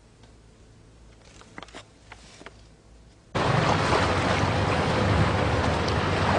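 Quiet at first with a few faint rustles, then about three seconds in a loud, steady rush of water and wind over the low drone of a river passenger ship's engine starts abruptly.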